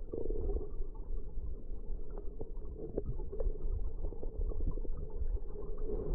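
River current heard underwater: a muffled, steady rumbling rush with scattered small clicks and knocks.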